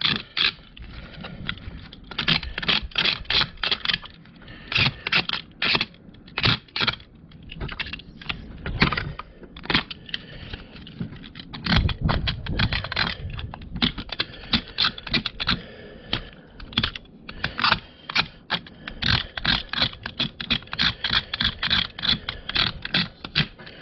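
A hand blade shaving and scraping the rough, melted edge of a cut-out plastic heater-box piece in quick repeated strokes, several a second. The strokes come in runs with short pauses, trimming away the hot-knife cut edge. There is one duller knock about twelve seconds in.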